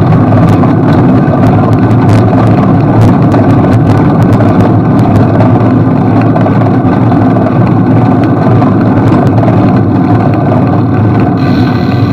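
Steady rumble of wind and road vibration on a bicycle-mounted camera's microphone as the bike rolls along, with frequent small clicks and rattles from the mount.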